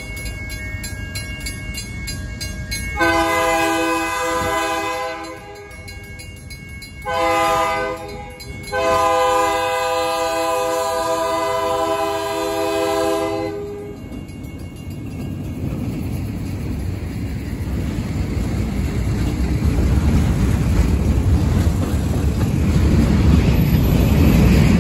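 Diesel freight locomotive's multi-tone air horn blowing the grade-crossing signal: the end of one blast, then a long, a short and a final long blast. After the horn stops, the locomotive and its freight cars rumble past, louder toward the end.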